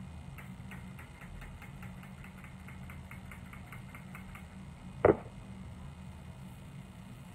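Hair being worked onto flexi rods: a run of faint quick ticks, then one sharp click about five seconds in, over a steady low hum.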